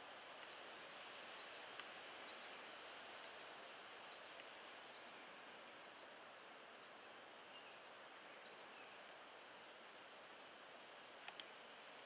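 Faint outdoor ambience: a steady soft hiss with a small bird's short high chirps repeating about once a second, loudest in the first few seconds and then fading, over a fainter high tick about twice a second. Two sharp clicks come close together near the end.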